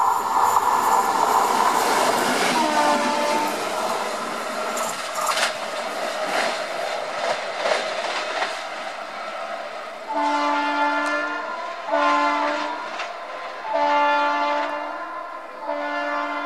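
WAP-7 electric locomotive running through at speed, its wheels rushing and clattering over the rail joints, with a short horn note about three seconds in. From about ten seconds in its horn sounds four blasts, two long and two shorter.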